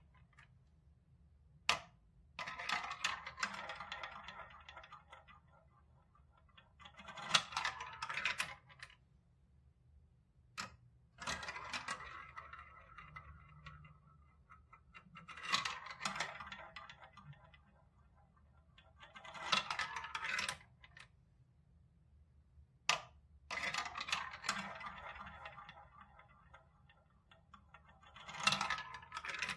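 Small plastic balls rolling one at a time through a plastic block marble run's tubes and spiral funnels, with rattling and clicking. About seven runs a few seconds apart, each lasting one to three seconds, with an occasional single sharp click between them.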